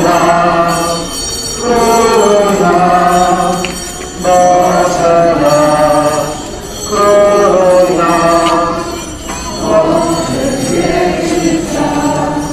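A hymn sung by a procession crowd in phrases of two to three seconds, with small bells jingling throughout.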